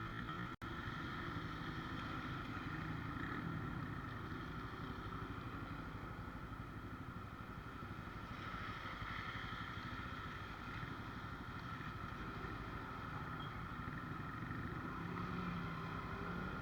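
Honda CB150R motorcycle's single-cylinder engine running steadily, with a brief total dropout about half a second in.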